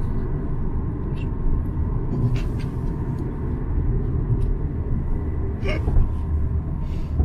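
Steady low rumble of a car heard from inside the cabin, with a few faint clicks or rustles.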